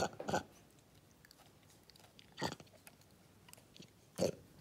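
Vervet monkey chewing and biting food at close range: a few short, crisp mouth clicks and crunches, a cluster at the start, one about halfway and another near the end, with quiet between.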